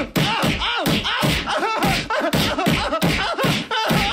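A rapid flurry of cartoon punches and slaps, about four a second without a break, mixed with short pained yelps and grunts: a one-sided beating.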